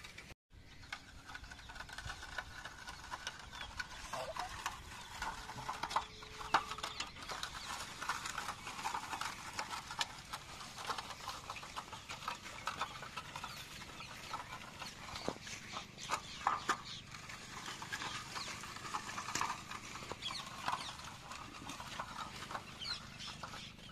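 Single-wheel hand hoe pushed through the soil between rows of young maize to cut out weeds: its blade scrapes and the clods crackle in faint, irregular clicks, with a few sharper knocks.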